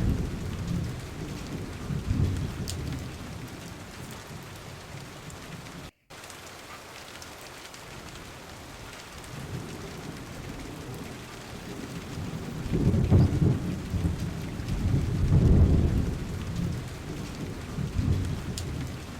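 Recorded steady rain with rolling thunder: low rumbles swell near the start and again in the second half over a constant rain hiss. The sound cuts out for a split second about six seconds in.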